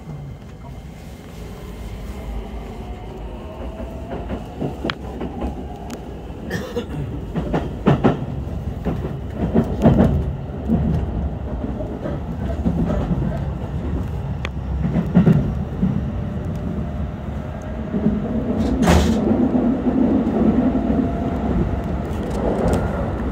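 Keikyu electric train pulling out of a station and gathering speed, heard from inside the carriage. The traction motors whine upward in pitch as it accelerates, and the running rumble grows louder, with sharp clacks of the wheels over rail joints and points.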